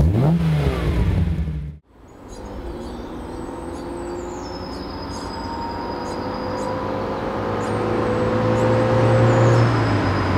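Rock intro music with a sweeping logo effect, cutting off sharply under two seconds in. Then a 1960 Alfa Romeo Giulietta Sprint Veloce's 1.3-litre twin-cam four-cylinder engine approaching at steady revs, growing steadily louder as the car comes closer.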